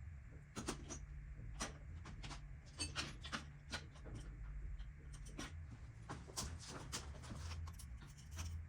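Irregular light clicks and taps of hand tools and small metal parts being handled while working on a small two-stroke motorcycle engine, over a steady low hum.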